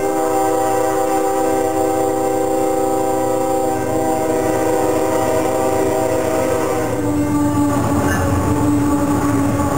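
Nathan K5HL five-chime air horn on a Ferromex GE ES44AC locomotive sounding a long continuous blast for a grade crossing as the train approaches fast. About seven seconds in, the chord drops in pitch as the locomotive passes, and the rumble and clatter of the wheels on the rails grows.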